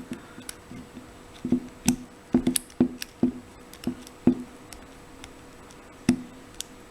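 Lock pick and tension wrench working in an Abus 83/45 padlock: irregular sharp clicks and taps, each with a short ring from the lock body, bunched in the middle with one more near the end. The core has dropped its false set and the picker is working the pins to get it back.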